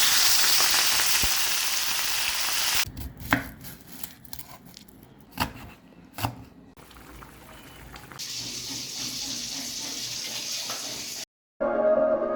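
Food sizzling in hot oil in a pan, broken in the middle by a few sharp knocks, after which the sizzling returns more quietly. Music starts just before the end.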